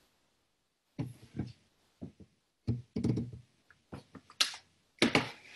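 Handling noise on a video-call microphone: an irregular string of soft knocks and thumps over a few seconds.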